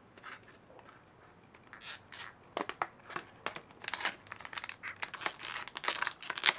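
Scissors cutting through stiff clear plastic knife packaging: a quick run of irregular snips and crackles of plastic, starting about two seconds in.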